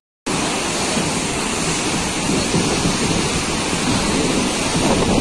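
Steady rush of a river in flood, brown floodwater churning down its channel, starting after a split-second gap.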